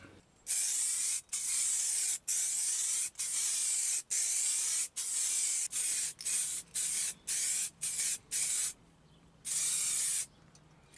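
Aerosol rattle can of blue candy paint spraying in about fourteen short hissing bursts, each under a second long, the later ones shorter and quicker, as coats of candy are laid onto a crash helmet.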